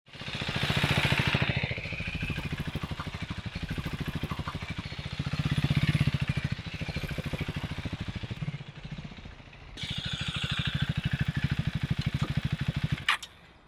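Single-cylinder engine of a Husqvarna Vitpilen 401 motorcycle running with an even, pulsing exhaust beat, swelling twice as the bike rides past. It dips briefly, picks up again, and ends with a sharp click near the end, after which it is much quieter.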